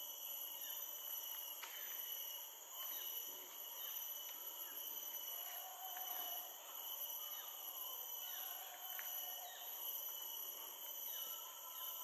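A steady insect chorus holding several high, even tones, with scattered brief falling chirps throughout.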